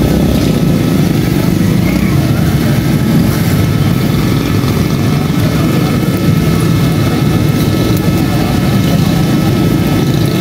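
A steady, loud, low mechanical rumble that does not change, with faint steady tones above it.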